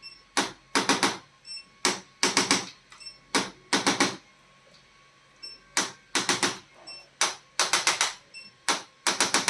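Sharp clicking in quick clusters of three or four, like rapid typing, repeating about six times with a short pause partway through.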